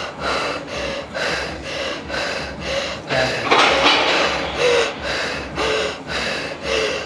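A woman panting hard through her mouth, about two quick breaths a second, picked up close by a clip-on microphone, with one longer, louder breath about halfway through. She is getting her breath back after an all-out set of shoulder presses.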